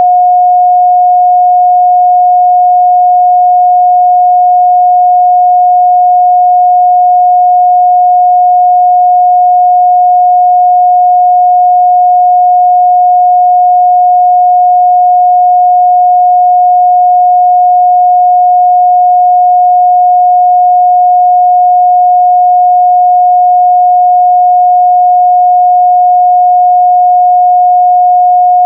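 A steady 721 Hz sine-wave test tone, one pure mid-range pitch held unchanged at a constant loud level.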